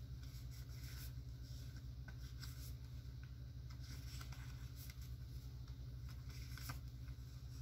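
Small white paper cards being flipped through and sorted by hand: faint, scattered paper rustles and flicks over a steady low hum.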